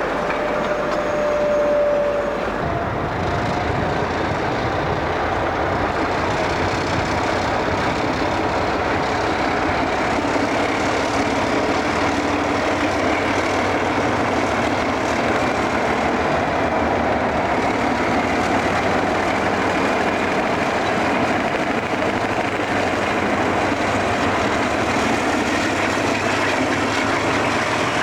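Railway train running, a steady continuous rumble of wheels on track with some clickety-clack. A short, steady high tone sounds in the first two seconds.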